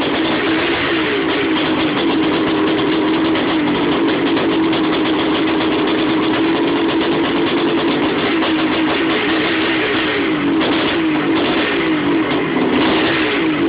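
Suzuki RM500's 500 cc two-stroke single-cylinder engine running near idle just after catching on its first start since an engine rebuild. The revs rise and fall a little, more noticeably near the end.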